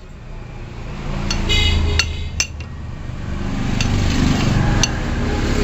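Sharp metallic clicks and clinks of a box spanner on the crankshaft nut while the magneto flywheel with its starter sprocket is tightened down by hand. A low drone builds up behind it.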